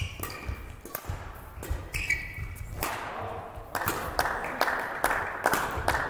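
Badminton rally: racket strikes on the shuttlecock and shoe squeaks on the court floor, then clapping from about four seconds in as the point ends.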